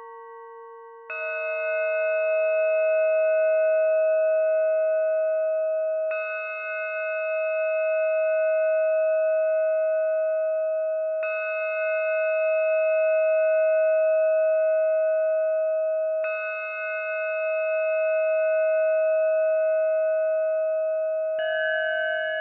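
Synthesized audio model of a small modern Italmas-cast church bell of about 14 kg, struck four times about five seconds apart, each stroke ringing on into the next. The fading hum of a larger, lower bell dies away in the first second. Near the end a different small bell, a 19th-century one of about 12 kg, is struck once with a higher, brighter ring.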